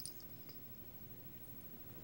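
Faint scuffling of two cats play-fighting on fabric upholstery: a brief rustle right at the start, then a couple of faint ticks and little else.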